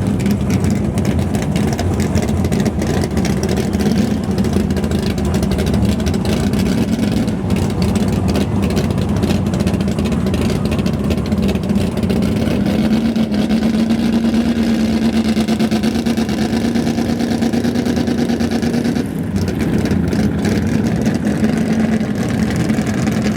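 Pro Stock drag car's naturally aspirated V8 engine running steadily near idle after start-up, its pitch creeping up a little past the middle and dipping briefly about four seconds before the end.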